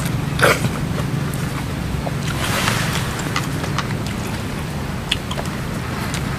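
A person eating a raw tomato: a bite about half a second in, then chewing with small wet clicks. A steady low hum runs underneath.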